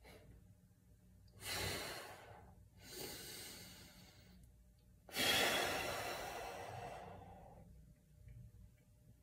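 A man breathing deeply and audibly: a sharp breath about a second and a half in, a softer one about three seconds in, then a long, louder breath out from about five seconds in that fades away over two seconds.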